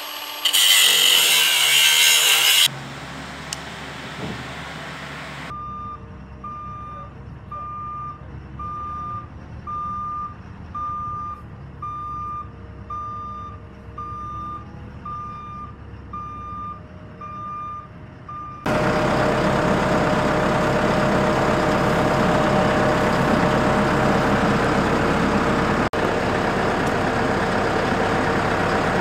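A loud hiss for the first couple of seconds, then a telehandler's reversing alarm beeping about once a second over a low engine rumble. About two-thirds of the way in, the telehandler's engine takes over, running loud and steady close by.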